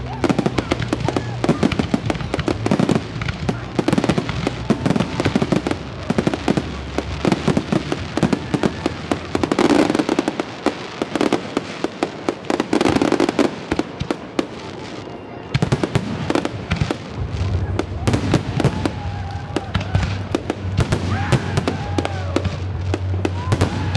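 Fireworks going off in rapid, continuous bangs and crackles, with music and voices underneath.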